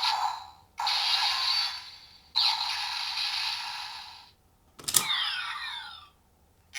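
Electronic transformation sound effects from the CSM Lostdriver toy belt's small speaker, the Kamen Rider Eternal sequence: two noisy whooshing bursts, the second longer, then a click and a swooping effect of crossing rising and falling sweeps.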